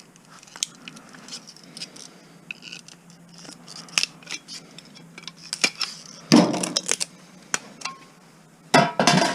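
Hand cutters snipping and clicking as the housing of a stereo's power transformer is cut open, with small metal clinks. Two louder rustling stretches come about six and nine seconds in.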